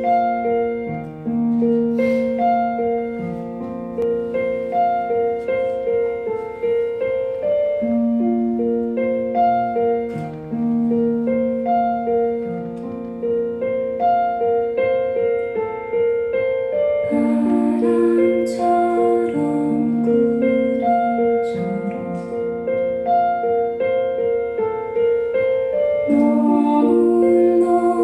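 Piano intro played on a Yamaha MOTIF XF7 synthesizer keyboard: a repeating broken-chord figure of sustained notes, steady in level.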